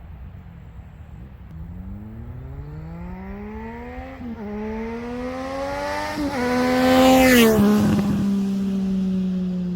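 Triumph Street Triple 765 RS three-cylinder engine accelerating hard up through the gears, with two upshifts about four and six seconds in, then passing by loudly about seven seconds in and holding a lower, steady note as it goes away.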